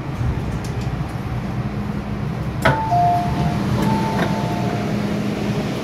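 MTR M-Train standing at the platform with a steady low hum. About halfway through, a sharp clack as the sliding passenger doors open, followed by a two-note falling door chime sounded twice.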